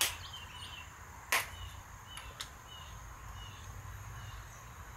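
A few sharp taps and clicks as cayenne pepper is shaken from a plastic spice shaker into a metal measuring spoon, the loudest at the start and about a second and a half in. Small birds chirp repeatedly in the background over a low steady hum.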